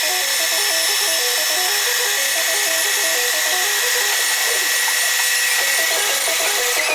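Manual metal lathe machining a bevel gear blank: a steady high-pitched cutting whine that dips slightly in pitch near the end. Background music plays under it.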